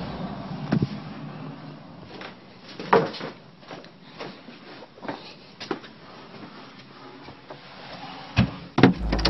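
Irregular knocks and clunks, about a dozen scattered and uneven in spacing, over faint steady background noise. A low drone comes back in near the end.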